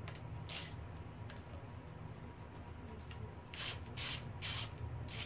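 Short scraping or rubbing sounds from parts being handled: one about half a second in, then three in quick succession about three and a half seconds in, over a steady low hum.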